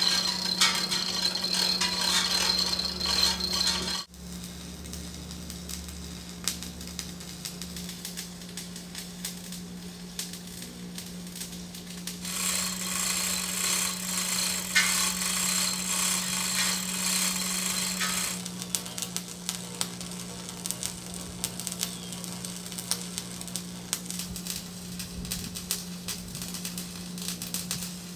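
Chain hoist's hand chain rattling as it is pulled to move the steel saw-head beam, stopping abruptly about four seconds in. Later a harsh hiss runs for about six seconds, over a steady low hum.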